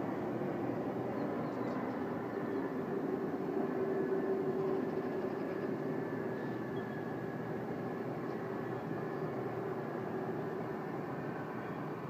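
Distant aircraft jet engines: a steady drone with a hum in it that swells about four seconds in, then slowly fades.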